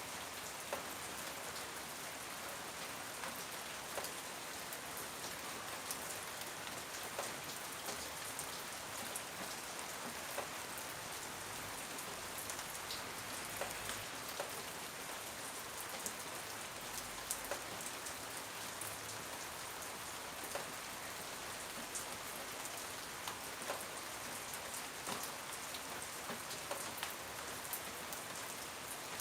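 Steady rainfall, an even hiss with many small drops ticking on a hard surface.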